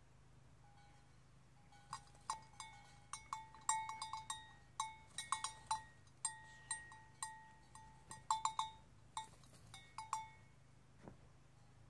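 Bell on a sheep's collar clanking in quick, irregular clusters of ringing clinks as the sheep moves its head while grazing. The clanking starts about two seconds in and stops shortly before the end.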